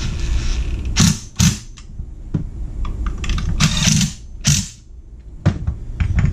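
Cordless driver running in short bursts as it drives screws into a McCulloch Eager Beaver 2.0 chainsaw's housing, mixed with sharp clunks and rattles as the saw body is handled on a wooden workbench.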